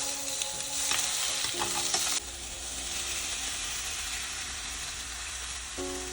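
Food sizzling and frying in a pan, a steady hiss that drops off suddenly about two seconds in to a quieter hiss over a low hum.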